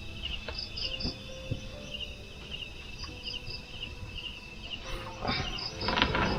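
Night insects chirping in short repeated groups of high pulses, with a few soft knocks and a burst of rustling, loudest just before the end.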